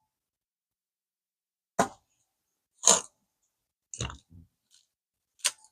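A few short rustles and knocks, each under a quarter second and about a second apart, as a small plastic packet of Carbontex drag washers is picked up and handled.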